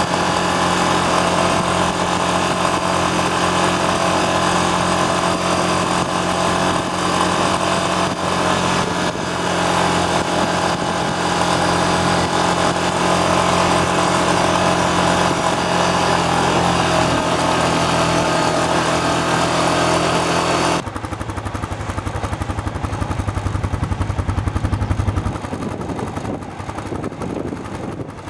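ATV engine running steadily at cruising speed, heard from on board along with wind and gravel-road rumble. About twenty seconds in, the sound cuts abruptly to a quieter, low pulsing engine throb as an ATV wades through water.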